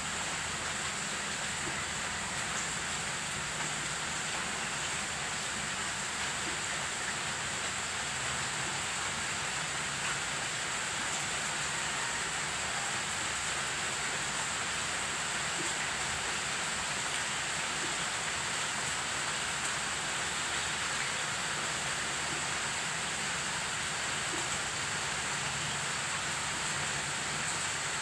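Steady rain falling on garden plants and a wet stone path, an even hiss that does not change.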